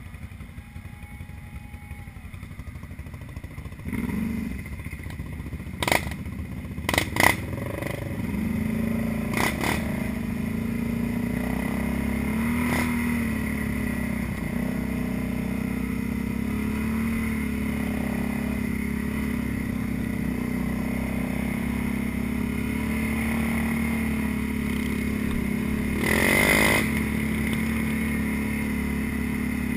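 ATV engine running steadily as the four-wheeler rides along a dirt trail, after a few sharp clacks in the first several seconds. A brief louder rise near the end.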